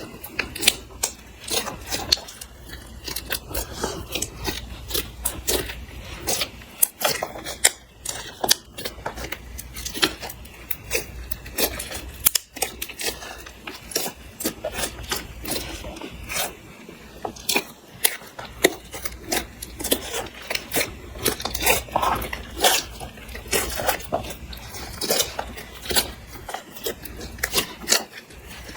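Clear slime mixed with makeup and glitter being kneaded and squished by hand, giving a constant stream of irregular sticky clicks and small pops.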